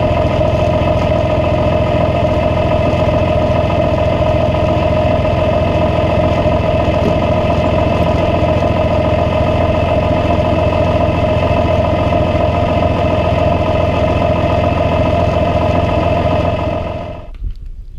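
Diesel engine of a farm loader running steadily at constant speed while it pushes snow. It stops suddenly about a second before the end.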